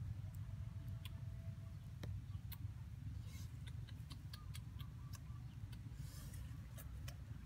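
Irregular sharp crackles and ticks from hot ash and embers under a fish roasting on a stick, with a couple of short hissing bursts, over a steady low rumble.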